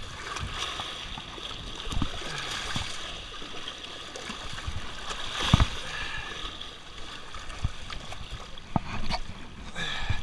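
Small waves washing and splashing over wet jetty rocks at the waterline, with a few short knocks and thumps, the strongest about halfway through.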